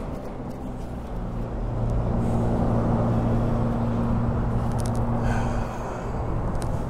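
A motor vehicle's engine drone, a steady low hum that swells from about two seconds in and fades near the end, as traffic passes on the road over the culvert. A couple of light knocks come near the end.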